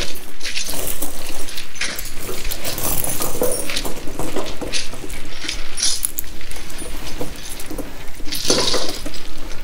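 Steel snow-chain links (Master Power 9060) clinking and jangling in irregular handfuls as the chain is unhooked and shifted around a motorhome tyre.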